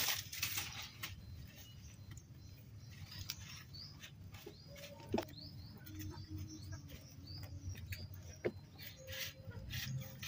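Rustling of leafy stems and crunchy chewing as goats feed on fresh greens, with scattered clicks and a few short, high chirps.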